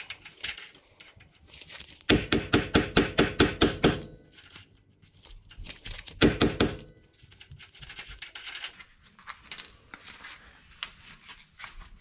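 Metal tools working a rusted rear lower control arm bolt loose. About two seconds in comes a two-second run of rapid sharp metal impacts, about seven a second. A shorter loud burst follows a few seconds later, then scattered light clicks and knocks.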